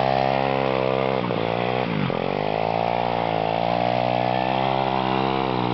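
Pit bike's small single-cylinder engine held at high revs as the rear wheel spins in the dirt in a burnout. The revs dip sharply twice, about a second and two seconds in, then climb back and hold steady.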